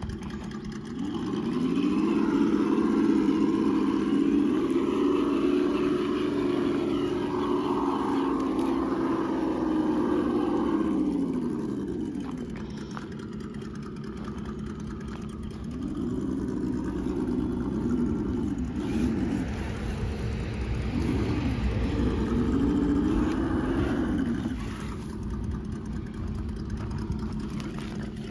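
RC scale crawler truck's electric motor and geared drivetrain whining as it is driven over obstacles, the pitch rising and falling with the throttle. There is one long run from about a second in to about twelve seconds, then several quick throttle blips later, over a steady low hum.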